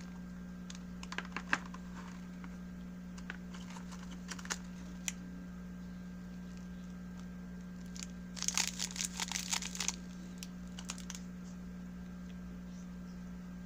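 Crinkling of clear plastic wrapping and light clicks of plastic parts being handled: a few scattered crackles early on, then a dense run of crinkling a little past the middle, over a steady low electrical hum.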